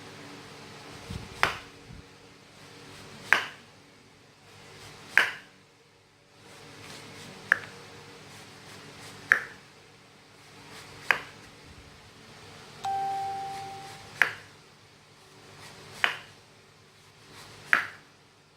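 Knife slicing a breadfruit into thin slices, each cut ending in a knock on the cutting board, about one every two seconds. A short steady beep sounds about halfway through.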